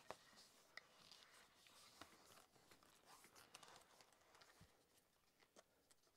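Faint rustling of a still-damp leather axe sheath being handled and fitted over the axe head, its strap pulled around, with a few light clicks and taps.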